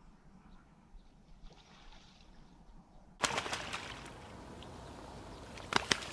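Faint stillness on the marsh, then from about three seconds in a louder wash of water being churned, with crackling splashes at first and two sharp splashes near the end: mallards fighting on the water.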